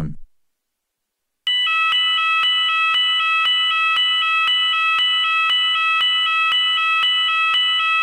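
Fire alarm going off: a loud, steady high-pitched ringing tone pulsing at an even rapid rate, starting suddenly about a second and a half in.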